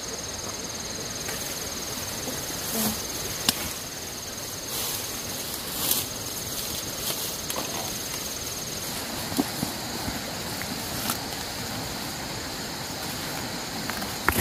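A high, rapidly pulsing insect trill over a steady outdoor hiss. The trill breaks off twice, about five seconds in and again near nine seconds. A few scattered knocks and rustles sound through it.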